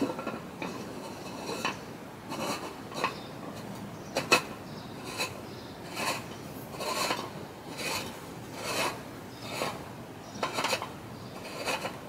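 Rhythmic rasping strokes, a little more than one a second, with one sharper, louder stroke about four seconds in.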